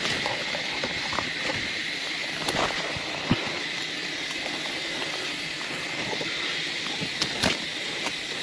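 Outdoor forest ambience: a steady, high-pitched insect-like hum with scattered sharp clicks and snaps, the loudest about three seconds in and again near the end.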